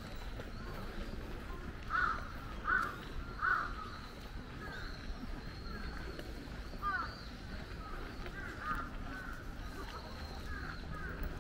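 A crow cawing three times in quick succession about two seconds in, with fainter bird calls and chirps scattered through the rest.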